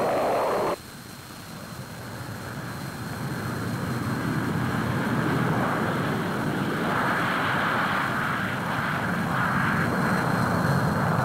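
Jet aircraft roar on an old film soundtrack: a loud, rushing engine noise that drops off abruptly under a second in, then swells back up and holds steady.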